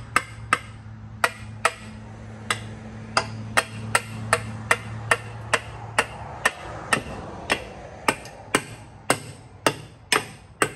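A hammer tapping a cylinder head down over its studs on a 1936 Ford flathead V8: sharp, ringing metal taps, roughly two a second. A low steady hum sits under the first half and fades out.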